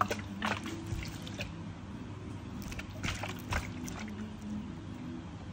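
Clear plastic water bottle with a flip-top lid being handled by a toddler: a scatter of light plastic clicks and taps, with a denser cluster about three seconds in, over a steady low hum.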